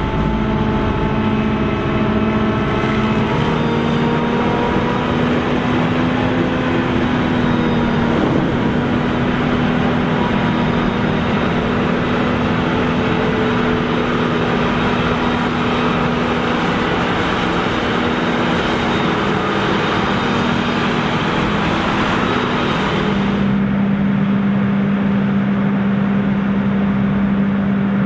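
Tractor engines working hard under load in deep mud, a steady running note with a faint high whine. Near the end the sound changes abruptly to a different, steadier engine note.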